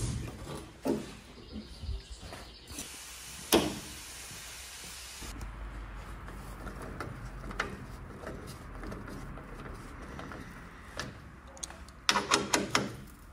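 Small metal clicks and knocks of a car hood latch and its bracket being pushed into place and worked with a screwdriver and nut driver, ending in a quick rattle of clicks about twelve seconds in. Behind it, a hiss of air for a couple of seconds, then a steady low hum.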